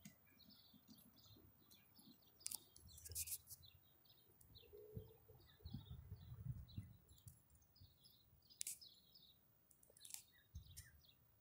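Faint birds chirping over and over, with a few sharp clicks and some low rumbling in between.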